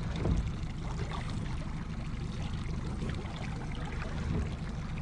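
Outboard motor running steadily at slow trolling speed, a low hum, with water trickling and sloshing along the boat's hull.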